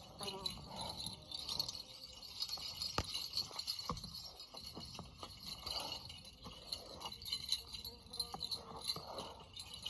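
Creekside ambience: a steady high chirring of insects over running creek water, with two light knocks about three and four seconds in.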